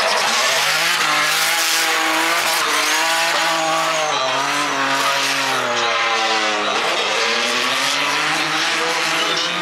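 Formula Drift car engine at high revs while drifting, with tyres skidding and squealing. The revs sag over a few seconds, drop sharply about two-thirds of the way through, then climb again.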